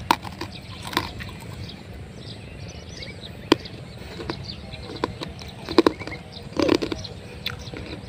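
Wind buffeting the microphone in an open field, with a few sharp clicks and taps and faint chirps.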